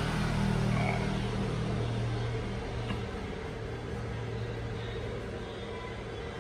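A steady low machine hum, louder for the first few seconds and easing off after about three seconds.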